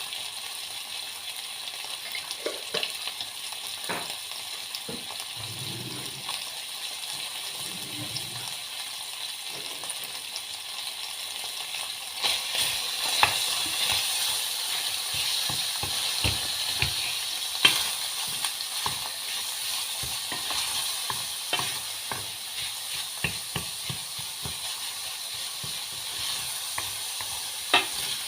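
Food sizzling and frying in a pan while it is stirred, the utensil clicking and scraping against the pan again and again. The sizzle grows louder about halfway through.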